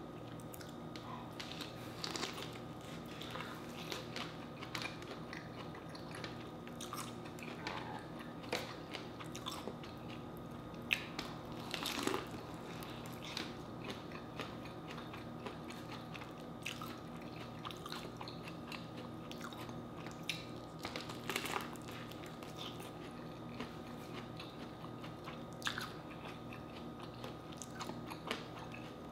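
Close-up eating sounds of a person biting and chewing corn on the cob dipped in butter sauce: scattered small crunches and wet mouth clicks, over a faint steady hum.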